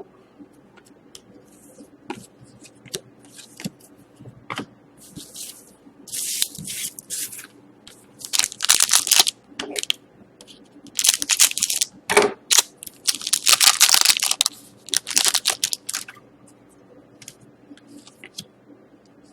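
Plastic card wrapping and trading cards handled at close range: several bursts of crinkling and tearing between small clicks and taps.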